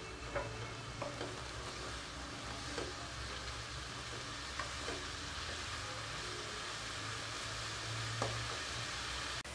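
Chopped carrots and green beans sizzling steadily in oil in a nonstick wok over a high flame, with a spatula stirring and scraping through them now and then.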